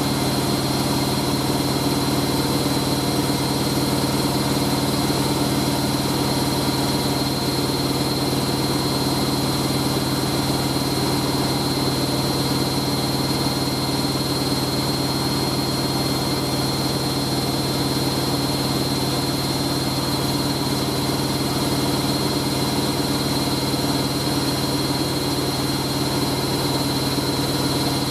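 Hoover A3060 Electronic 1100 washing machine in its final spin at about 1100 rpm, running steadily with a low hum and a high whine: the towel load is spinning balanced and stable.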